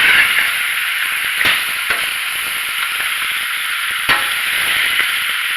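Pork and vegetables sizzling hard in a pan over a very high flame. The steady sizzle is the sign that the pan is still hot enough to sauté. A few sharp knocks break in about one and a half, two and four seconds in.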